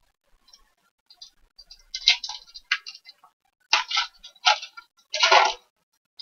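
Foil trading-card pack wrapper crinkling and being torn open by hand, in a few short crackly bursts with the loudest near the end.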